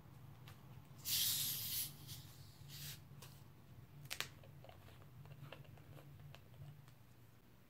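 Screw cap twisted open on a plastic bottle of carbonated Sparkling Ice: the gas hisses out sharply about a second in, with a shorter hiss near three seconds. A couple of sharp clicks follow from the cap and bottle.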